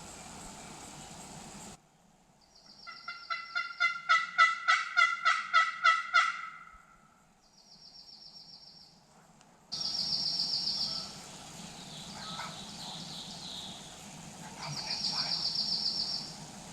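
A large bird calling: a run of about a dozen loud, evenly spaced calls, about three a second, swelling and then fading. A small bird's short high trill repeats every few seconds between them.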